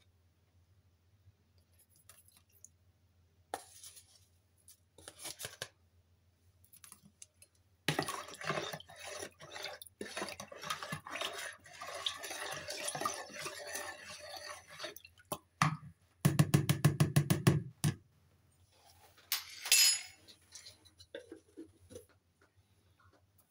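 A spoon stirring water in a plastic mixing bowl, with clattering and scraping against the bowl and water sloshing. About two-thirds of the way through comes a fast run of loud rattling taps, then one more short scrape.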